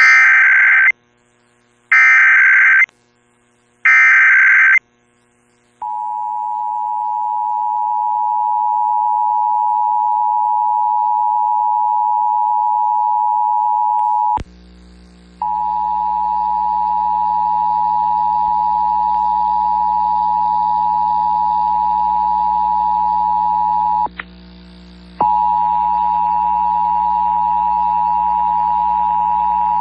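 Emergency Alert System test over the radio: three one-second bursts of SAME header data tones, then the steady two-tone EAS attention signal. The attention signal cuts out for about a second twice, and after the first break a low hum sits under it.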